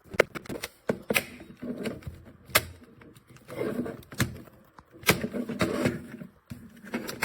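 Irregular sharp plastic clicks and handling rattles from a double retractable dog leash handle as its lock buttons are pressed. The owner says the locks do not work.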